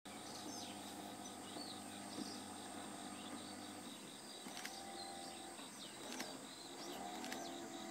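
Outdoor ambience of birds chirping over a steady, pulsing insect trill, with a faint low hum that comes and goes and a few light clicks.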